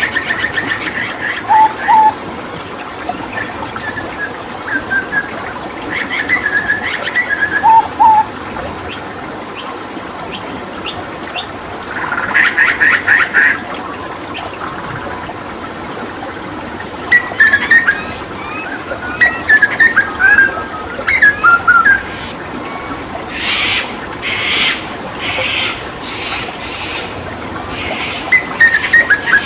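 Hooded butcherbird singing in separate phrases: short whistled notes, a rapid rattling trill about twelve seconds in, and a run of harsh bursts in the second half. A steady water sound runs beneath it.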